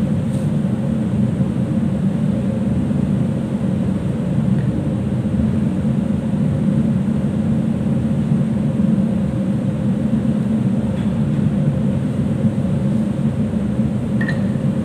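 Steady low hum of a ship's machinery and ventilation, unchanging throughout, with a faint steady tone running through it.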